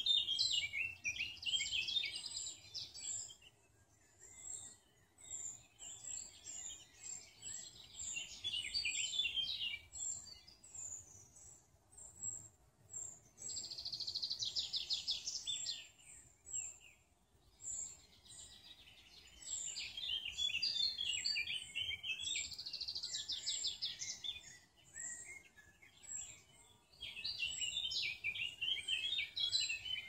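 Several songbirds singing in woodland. One bird repeats song phrases of two to three seconds, each with fast trills, separated by short pauses. Another bird keeps up a steady series of high, thin notes.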